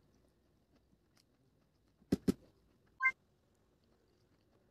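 Spoon knocking against a steel plate while scooping noodles: two quick sharp taps about two seconds in, then a single short ringing clink about a second later.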